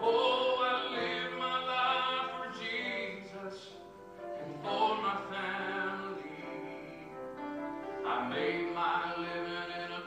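A hymn sung in long, drawn-out phrases with held notes, over instrumental accompaniment, with a brief pause about four seconds in and a new phrase starting near eight seconds.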